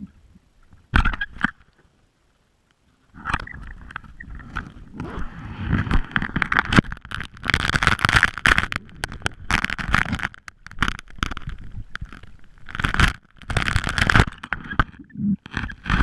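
Underwater GoPro in its housing scraping and knocking against a mussel-encrusted dock wall, with water rushing past it, heard muffled through the housing. There is a short dead silence about two seconds in, then the scraping and rushing come in irregular bursts.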